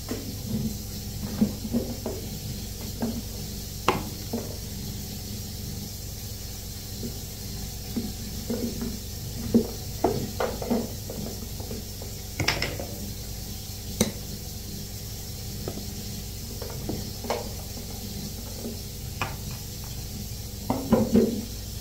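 Plastic bottles and tubs of toiletries being picked up and set down on a bathroom counter: irregular knocks and clatters, a cluster of them near the end, over a steady background hum.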